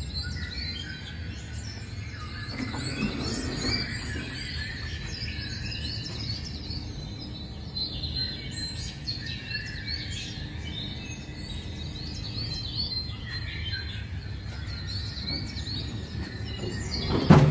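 Recorded jungle ambience played over loudspeakers: a dense mix of many bird chirps and calls, with a low steady rumble underneath.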